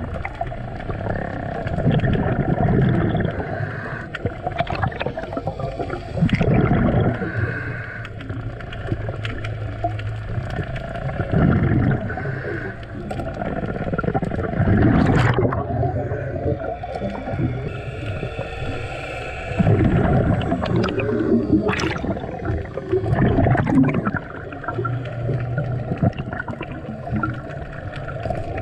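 Underwater sound of a scuba diver breathing through a regulator, with a loud rush of exhaled bubbles about every four to five seconds.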